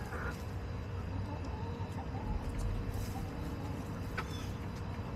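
Backyard hens giving a few soft, faint clucks while foraging, over a steady low rumble.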